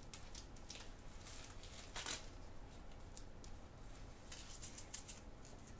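Faint rustling and scratchy handling noises from the fabric back strap of a chicken diaper being threaded through and adjusted on a chicken, with one louder rasp about two seconds in.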